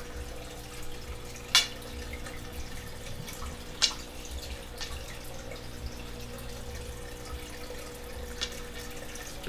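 Aquarium filter trickling and dripping steadily over a low hum, with two sharp knocks about one and a half and four seconds in.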